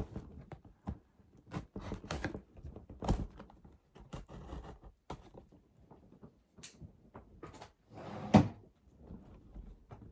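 Cardboard box and packaging being handled as the skates are unpacked: a run of short knocks, scrapes and rustles, with one louder thump about eight seconds in.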